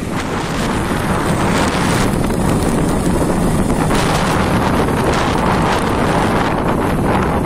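Loud wind rushing over the microphone of a moving motorcycle, over the bike's running engine and road noise.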